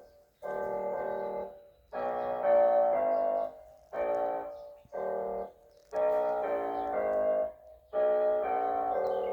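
Instrumental background music: chords held in short phrases of about a second each, with brief pauses between them.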